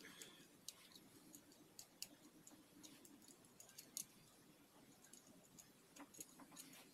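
Faint, irregular metallic clicks and ticks of a screwdriver and thin wire against a lathe's clutch plates and pulley, as the wire is worked around the gap between the plates and twisted to pull them apart.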